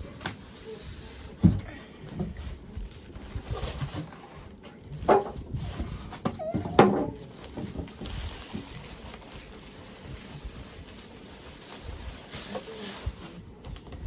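Cardboard box of a mini fridge being wrestled open by hand: three loud knocks and scrapes about one and a half, five and seven seconds in, then a steady rustle of packing.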